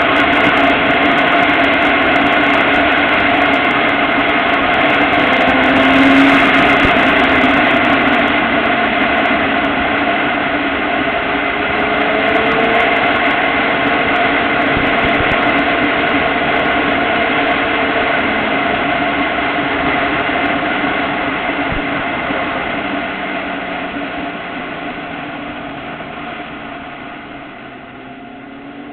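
Motorcycle engine running at road speed under the rider, its pitch shifting a little with the throttle. Over the last several seconds it grows gradually quieter as the bike eases off and slows.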